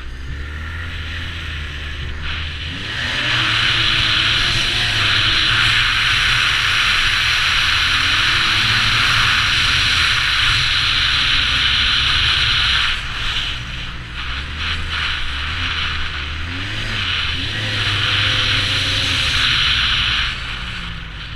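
Arctic Cat Z1 Turbo snowmobile's 1,056cc turbocharged four-stroke engine under way, its pitch rising and falling as the throttle is worked. A loud rushing hiss comes in with the harder runs, about 3 s in until about 13 s in, and again briefly near the end.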